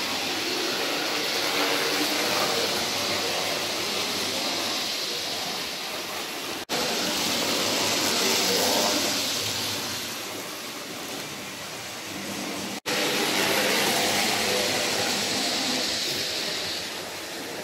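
00 gauge model trains running on the layout: a steady whirring rush of wheels on track and electric motors, swelling three times as trains pass close and fading between. The sound drops out for an instant twice.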